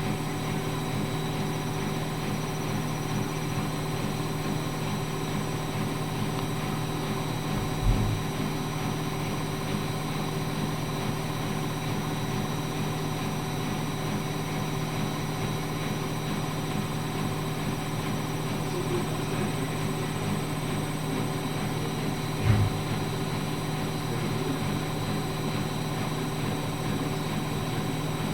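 Washing machine running with a steady motor hum, broken twice by a short, dull low thump about fifteen seconds apart.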